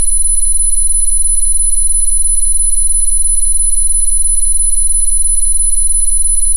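Synthesized steady electronic tones: a very high, piercing tone dominates, with fainter steady tones beneath it and a low hum, all unchanging.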